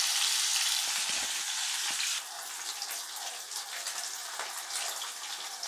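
Vanjaram (seer fish) steaks shallow-frying in oil in a nonstick pan on a low flame: a steady sizzle with small crackles and pops. The sizzle drops somewhat in level about two seconds in.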